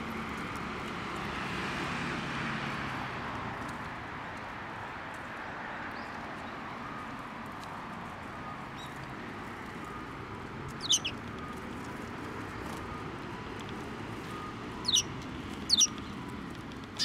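Eurasian tree sparrows giving about four short, sharp chirps in the second half, each sweeping quickly down in pitch, over a steady background hiss.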